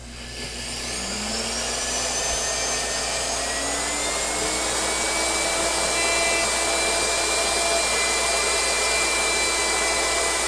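Blender motor starting up, its pitch rising over the first couple of seconds, then running steadily at speed while grinding sesame seeds and oil toward a tahini paste.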